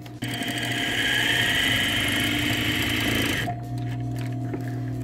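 Electric sewing machine running, stitching a seam; it starts abruptly and stops about three and a half seconds in. A steady low electric hum carries on underneath.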